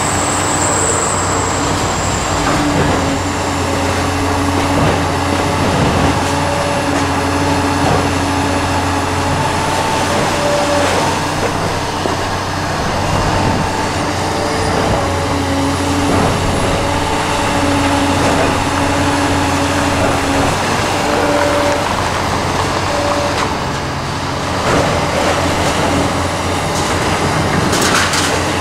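Liebherr 946 excavator running and working under load: a steady low diesel drone with a whine that comes and goes, and occasional knocks.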